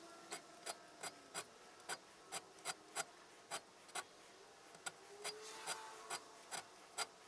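Hand file cutting into the end of a small steel bar, shaping a touchmark stamp's design: short, crisp strokes about two to three a second, with a brief pause a little past halfway.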